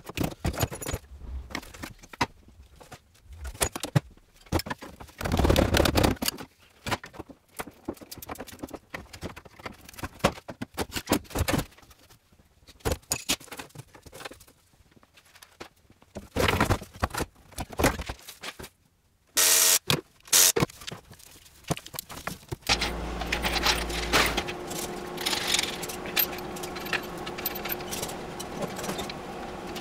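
Metal hand tools clattering and scraping against the floor panels of a stripped Land Rover as they are gathered up, in irregular bursts with a loud clatter about two-thirds of the way through. Near the end this gives way to a steady workshop hum with light metal clinks.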